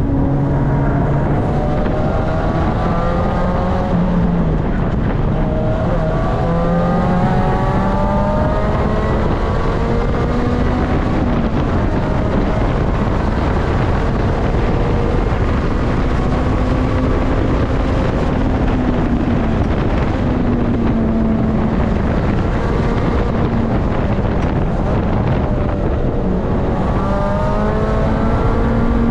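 Supercharged 2005 Lotus Elise's four-cylinder engine heard from inside the cabin at full throttle on track. The revs climb in steps through the gears over the first ten seconds or so, hold fairly steady at speed, drop off around braking and climb again near the end, over constant road and wind noise.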